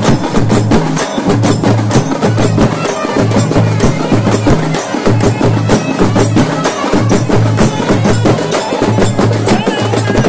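Traditional percussion music: fast, dense drum and clacking strokes over a low note that repeats in short blocks.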